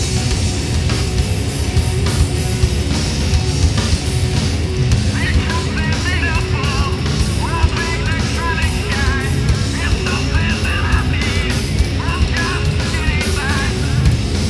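A loud live rock band with heavy distorted guitars, bass and drums playing through outdoor PA speakers. From about five seconds in, a male singer shouts the vocal line through a handheld megaphone, and the voice sounds narrow and thin over the band.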